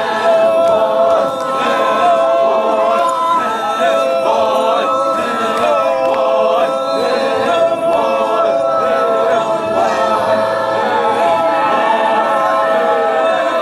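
A group of voices singing a traditional Ao Naga folk song unaccompanied and in unison, in long held notes.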